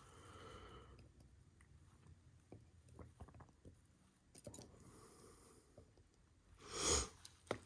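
Faint, scattered small clicks and taps of small lock parts being handled with tools during disassembly of a lock cylinder. A brief louder rush of noise comes near the end.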